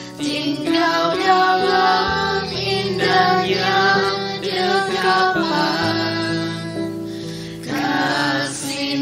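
Worship song: a woman's voice singing over sustained instrumental accompaniment, pausing briefly between phrases near the end.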